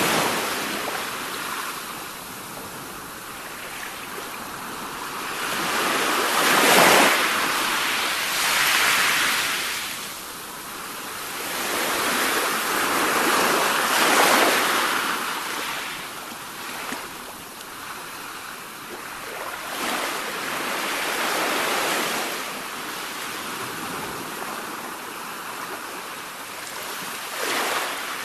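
Sea waves breaking and washing up the shore, the surf swelling and falling back every few seconds, loudest about seven and fourteen seconds in.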